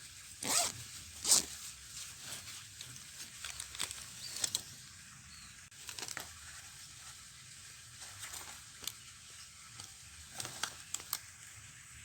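Scattered short rustles and crinkles, the loudest two near the start, over a faint steady high hiss.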